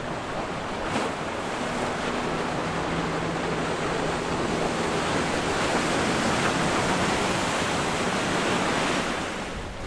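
Rushing water and spray from a large sportfishing yacht's hull running at speed through the inlet, swelling to a peak and falling away near the end.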